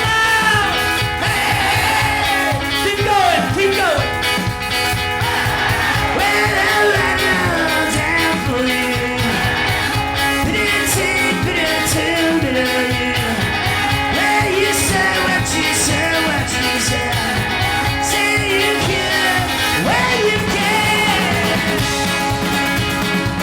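Live rock band playing a song: a singing voice over guitar and a steady beat, with a held low note coming in near the end.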